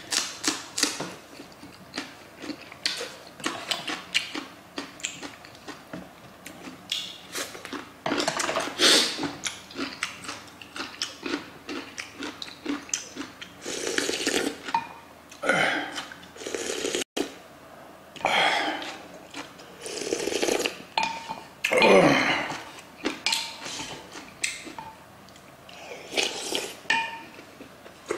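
Close-up eating sounds: crunchy bites of raw green chili pepper, chewing and slurping spoonfuls of hot soup, with the occasional knock of spoon or dishes. They come as an irregular string of short, loud mouth noises.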